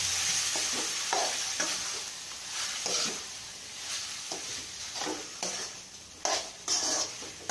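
Raw chicken pieces frying with onion and tomato in oil in a steel pot, sizzling steadily while a metal spoon stirs them in short scraping strokes about every half second. Two louder scrapes come near the end.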